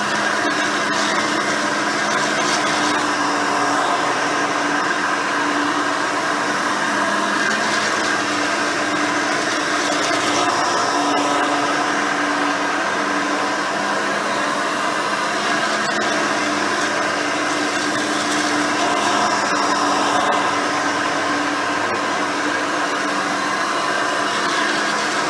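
Hoover Elite 350 vacuum cleaner running steadily while vacuuming, its motor giving a constant whine of several steady tones with little change in level.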